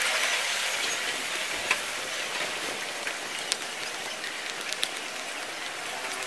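Steady hiss of outdoor background noise, with a few faint clicks.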